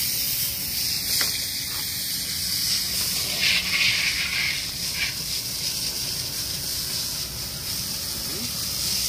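Steady hiss of water spraying from a hose wand onto fresh concrete, washing off the surface layer to expose the embedded oyster shells; the hiss swells for about a second partway through.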